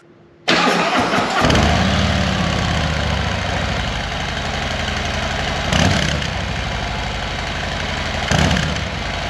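Harley-Davidson Road Glide ST's Milwaukee-Eight 117 V-twin starting about half a second in through its stock exhaust, then idling with two short throttle blips.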